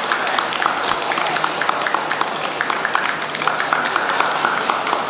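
Steady hubbub of a large indoor crowd, with many short clicks and taps running through it.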